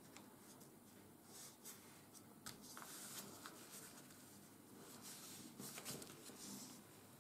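Faint rustling and scraping of a sheet of 80 g/m² office paper as fingers press and smooth its folds, with a few soft ticks of the paper.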